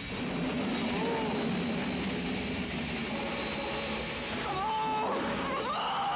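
Compressed air hissing into a U-boat's ballast tanks as the valves are thrown open to blow all tanks, an emergency blow to lift the boat off the bottom. The steady rush starts abruptly and holds.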